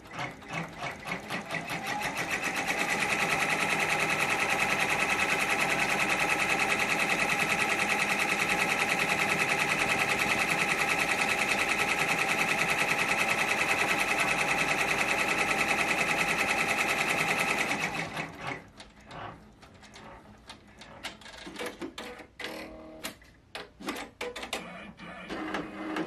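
Multi-needle embroidery machine sewing a tack-down stitch. It builds up over the first two to three seconds to a steady, fast stitching rhythm and stops about 18 seconds in. Scattered light clicks and knocks follow.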